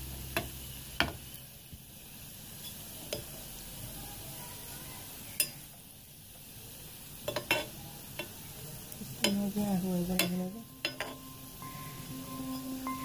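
Gulab jamun balls sizzling as they deep-fry in oil in an aluminium pan, with a steel ladle stirring and turning them and clinking sharply against the pan several times.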